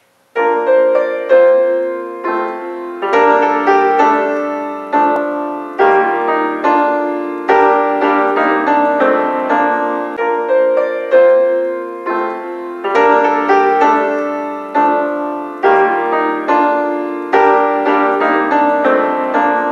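Solo piano music: a gentle melody of notes struck one after another and left to fade, starting about half a second in.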